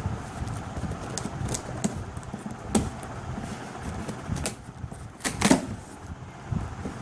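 Hands opening and handling a hard drive's packaging: an irregular run of taps, clicks and rustles, with two louder knocks about three and five and a half seconds in.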